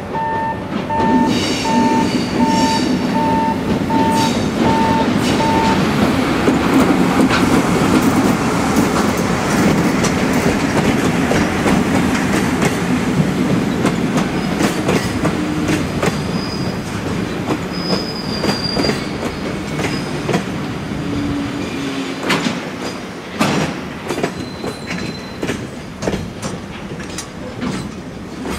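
EF64-1000-series electric locomotive and its container freight wagons rolling past: a steady rumble of wheels with repeated clicks over rail joints and a few brief high wheel squeals in the middle. A beeping warning tone sounds over the first six seconds, then stops.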